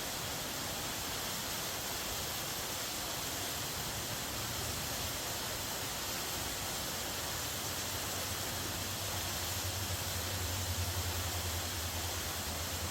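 Waterfall pouring steadily, an even wash of falling water; a low rumble swells underneath about nine seconds in.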